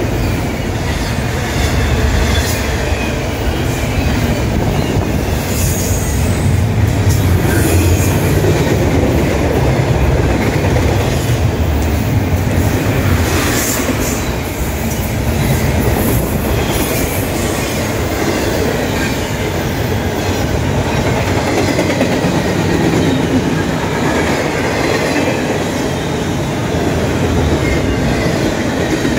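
Double-stack container well cars of a freight train rolling past at close range: a steady rumble and clatter of steel wheels on the rails, with occasional sharper clanks.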